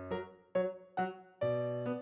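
Background music: a piano or electric-piano tune, one note struck about every half second.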